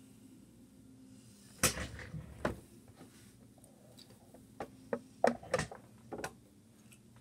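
Sharp clicks and knocks of Skittles candies being handled at a desk: a loud knock about a second and a half in, another about a second later, then a run of clicks around five to six seconds in.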